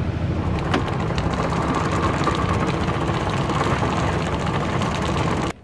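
Sailing yacht's inboard engine running, a steady low rumble as the boat motors slowly in to anchor; it cuts off suddenly near the end.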